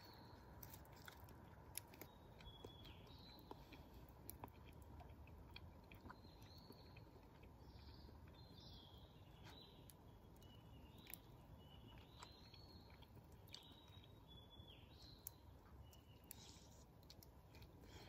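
Faint forest ambience: short, scattered bird chirps and calls repeating throughout, with a few soft small clicks and crackles.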